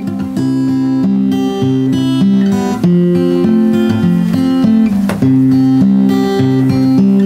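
Music: an acoustic guitar playing a steady run of changing notes.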